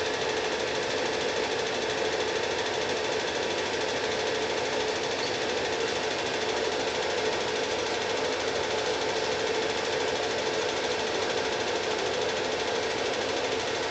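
Cine film projector running: a steady, fast mechanical rattle with a constant hum underneath.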